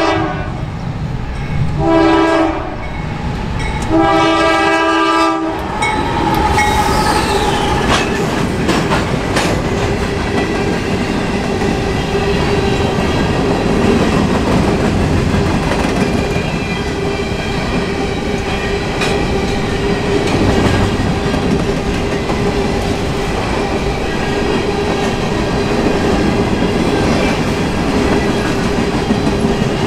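A Norfolk Southern GE AC44C6M diesel-electric locomotive's multi-chime air horn sounds at a grade crossing: it finishes one blast, gives a short blast, then a longer one that ends about five seconds in. The locomotive then passes, and a long string of covered grain hopper cars rolls by with a steady clickety-clack of wheels over the rails.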